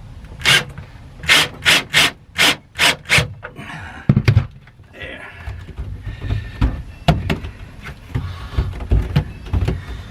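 Handling noise in the storage compartment: seven quick scraping bursts in the first three seconds, a heavy thunk about four seconds in, then scattered knocks and rustling.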